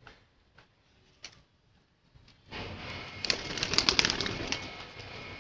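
Domestic pigeons: a few faint clicks, then about two and a half seconds in a sudden louder stretch of wing flapping and rustling.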